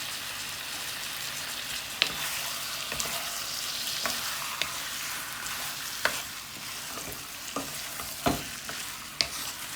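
Chicken pieces sizzling as they fry in ghee in a pan, with a steady hiss. A utensil knocks sharply against the pan every second or two as the pan is stirred.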